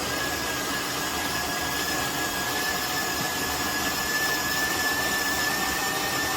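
De'Longhi La Specialista Touch espresso machine's built-in burr grinder running steadily, grinding a single-shot dose of coffee beans into the portafilter, with a steady high whine over the grinding noise.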